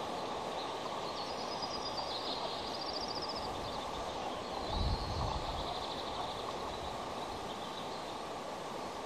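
Steady wind and surf noise on an outdoor nest-camera microphone, with two spells of faint, high, rapidly pulsed bird calls, about a second in and again near the middle. Around five seconds in a low buffet of wind hits the microphone.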